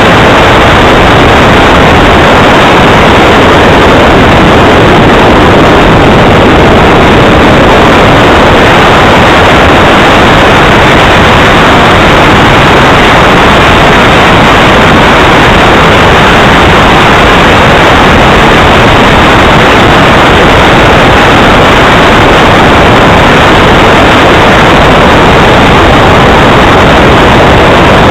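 Engine of a radio-controlled Tornado model jet running in flight: a steady, even rushing noise recorded so loud that it stays pinned at full level with no rise or fall.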